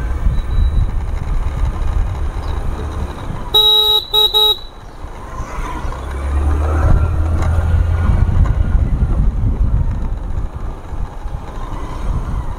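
A vehicle horn beeps in a quick burst of a few short honks about three and a half seconds in, over the steady low rumble of a motorcycle being ridden with wind on the microphone.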